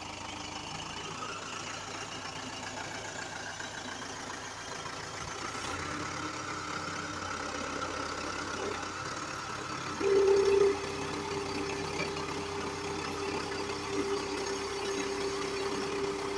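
Kubota tractor's diesel engine running steadily. About ten seconds in there is a brief louder burst, then a steady droning tone that holds to the end.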